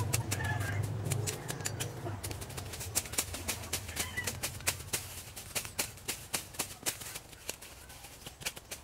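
A bolo knife slashing through grass and weeds: a quick, uneven run of sharp chops and swishes, several a second, growing fainter toward the end. A low rumble sounds under the first two seconds.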